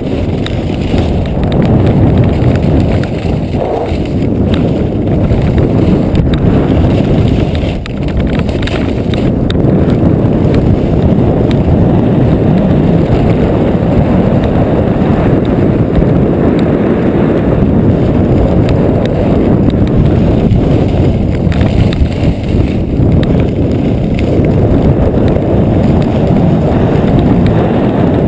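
Steady loud rush of wind over a camera microphone mixed with skis sliding and scraping over groomed snow during a downhill ski run; it swells in about a second in and dips briefly near the eight-second mark.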